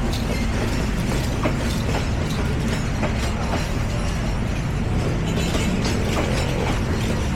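Train running along the track: a steady low rumble with irregular clicks and rattles of wheels on the rails.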